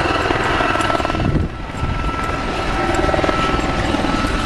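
A helicopter flying low overhead, its main rotor making a rapid, steady chop with a thin whine from the engine.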